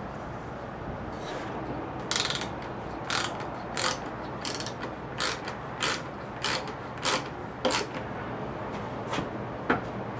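Ratchet wrench clicking through about ten short strokes, a little over half a second apart, tightening the bolt of a plywood mounting bracket into the T-nut in a plastic owl decoy's base; after a pause, two more strokes near the end.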